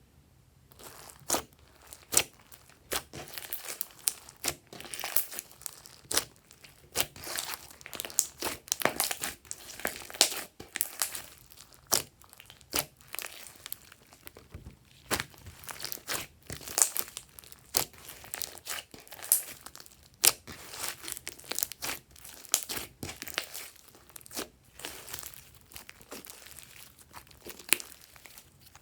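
Glossy slime being squished, stretched and folded by hand, giving irregular sticky crackles and sharp pops as air pockets burst.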